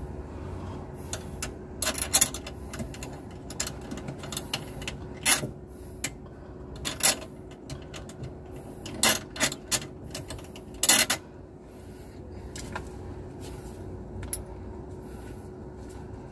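Irregular metallic clicks and knocks from hand tools and fittings being handled at an aircraft crew oxygen cylinder's mounting, over a steady faint hum.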